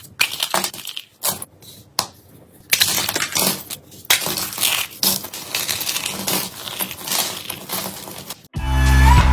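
Slime being squeezed and pressed with the fingers, giving dense irregular crackling and crunching. Loud music with a heavy bass starts suddenly near the end.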